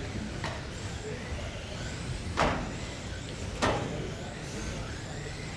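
Electric 1/12-scale GT12 radio-controlled race cars running around an indoor carpet track, a steady hum and hiss, with two sharp knocks about two and a half and three and a half seconds in.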